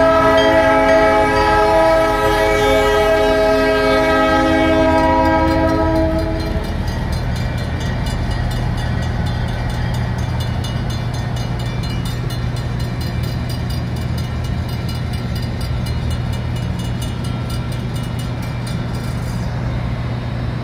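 A CN diesel locomotive's multi-note horn blows one long blast that ends about six seconds in, over the steady running of the locomotive's diesel engine. As the locomotive moves away, the crossing's Safetran hybrid bell rings in an even rapid rhythm, stopping shortly before the end.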